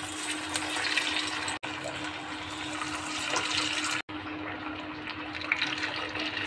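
Sabudana vadas deep-frying in hot oil in a steel pan: a steady sizzle of bubbling oil. Brief drop-outs break it about one and a half and four seconds in.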